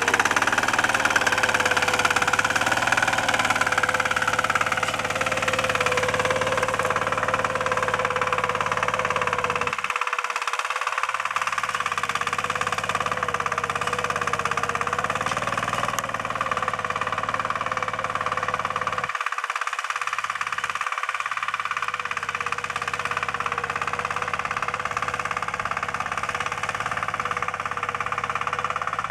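Single-cylinder engine of a Kentavr walk-behind tractor running steadily under load as it pulls a potato digger through the soil.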